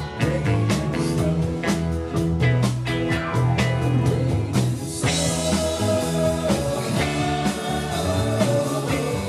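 Rock band playing with drums, electric guitars, bass and keyboards; the drums hit steadily, and a cymbal crash comes about five seconds in, after which held chords ring on.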